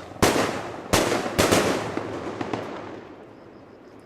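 Fireworks going off: four sharp bangs in the first second and a half, each trailed by crackling. The crackle dies away after about three seconds.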